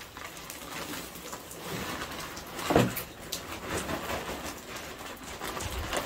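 Potting soil pouring out of a large plastic bag into a raised planter bed, with the bag rustling and crinkling as it is tipped and shaken, and one louder rustle or thump about three seconds in.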